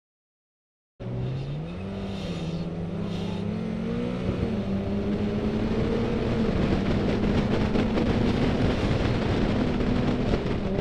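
Car engine heard from inside the cabin accelerating. It cuts in about a second in, its pitch climbing in steps over the next few seconds and then holding steady, under rising road and wind noise.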